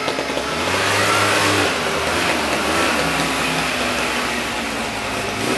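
ATV engine revving up and down as the quad is ridden past.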